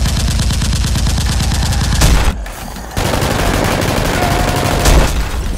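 Rapid automatic gunfire sound effect in two long bursts, broken by a short pause a little past two seconds in.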